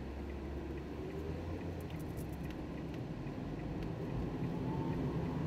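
Steady low rumble of a car driving along a street, heard from inside the cabin, with a few faint clicks.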